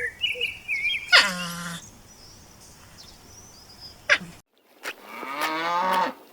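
A pitched animal call that drops steeply in pitch and settles low. After an abrupt cut, a cow moos once for about a second.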